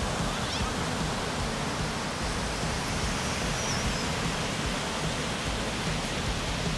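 Steady, even rushing noise with a deep rumble underneath.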